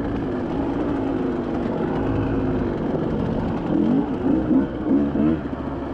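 Dirt bike engine running on a trail, then several quick throttle revs rising and falling in pitch near the end.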